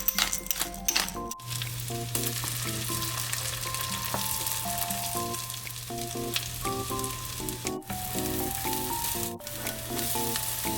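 Food frying in oil in a pan, with a steady sizzle that starts about a second and a half in after a few clicks, under light background music.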